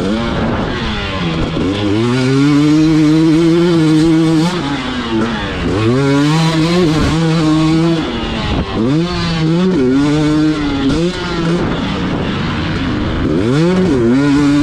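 KTM two-stroke enduro dirt bike engine ridden hard, its pitch climbing as it accelerates and dropping sharply again and again as the rider shifts and rolls off the throttle.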